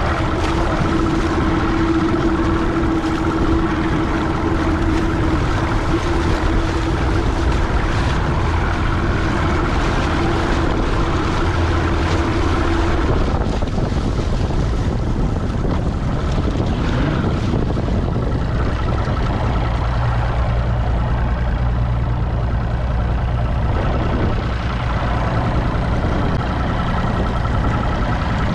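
Outboard motor of a Nitro Z19 bass boat running at low speed, with wind buffeting the microphone. A steady hum in the engine sound stops about halfway through while the low drone and wind continue.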